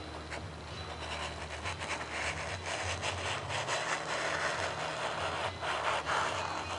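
Straight knife blade being drawn through foam sheet to make a 45-degree bevel cut, a continuous scratchy rubbing that grows louder about a second in. A steady low hum sits underneath.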